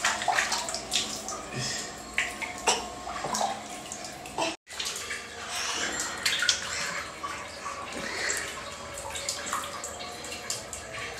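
Water splashing and pouring over a toddler during a bath in a tiled bathroom, with many short splashes. The sound drops out for an instant about halfway through.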